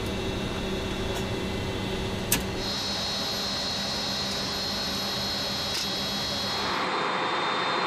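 Steady hum of the C-5M Super Galaxy's flight deck equipment, with several thin whining tones and one sharp click a little over two seconds in. Near the end it changes to a broader rush of jet engine noise.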